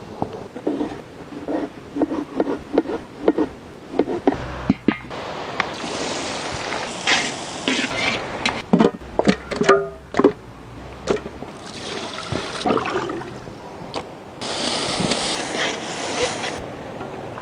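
Kitchen cooking sounds: metal utensils and pots clinking and knocking, with several stretches of a rushing, liquid-like hiss a few seconds long.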